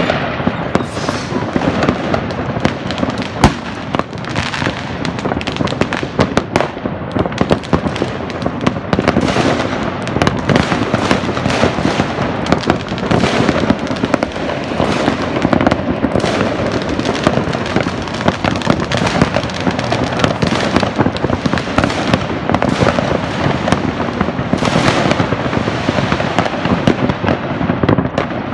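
Many fireworks and firecrackers going off around a city at once, making a dense, continuous crackle of bangs and pops with no gaps. One sharp bang about three seconds in is louder than the rest.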